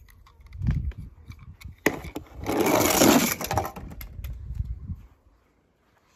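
Scattered small clicks and knocks of hard objects, with a loud crunching, breaking noise about two seconds in that lasts over a second.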